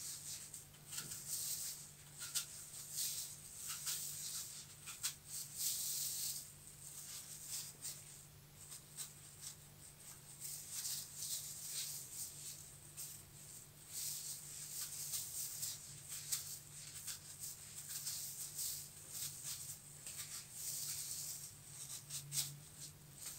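Knife cutting a peeled apple held in the hand, chunks dropping into a bowl: irregular crisp slicing crunches and small clicks. A faint steady low hum runs beneath.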